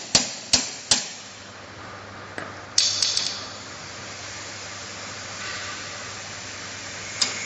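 Hammer blows on steel parts of a ZP9B rotary tablet press being dismantled for a mould change: three sharp strikes in the first second, about two a second. These are followed by bright metallic clinks of tools and parts about three seconds in and again near the end.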